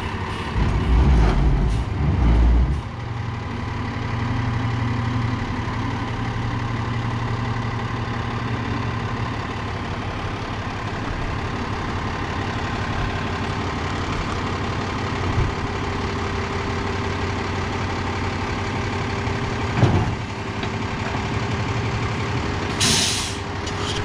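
Peterbilt roll-off truck's Cummins diesel engine running steadily while the hydraulic hoist lowers a dumpster off the back onto the ground. Heavy low thumps come about a second and two seconds in, a single knock near 20 seconds, and a short hiss near the end.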